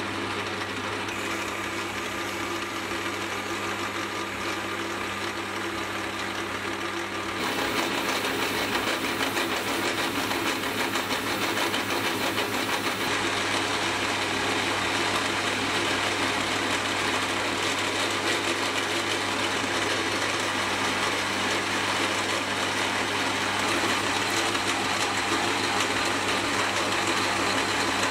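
Metal lathe running steadily while turning an acetal plastic rod into bushings, with a constant motor and gear hum under the noise of the cut. It gets a little louder about seven seconds in.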